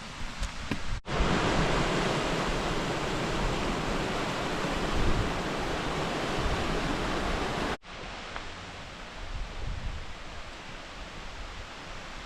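Steady rush of falling water at a waterfall. It starts abruptly about a second in at its loudest, then drops to a quieter rush at a sudden cut near the two-thirds mark.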